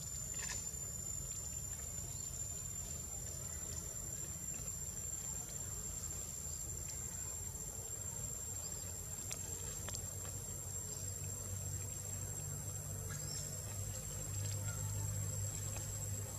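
A steady, high-pitched insect drone, one unbroken tone, over a low rumble with a few faint ticks; a low hum comes up and grows louder near the end.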